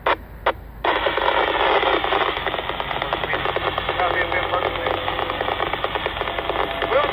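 Radio receiver crackling with two short bursts of squelch, then opening into a steady, crackling hiss of static with faint broken voice fragments in it.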